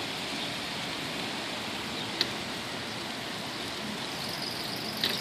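Steady hiss of falling rain, with one short sharp tick about two seconds in.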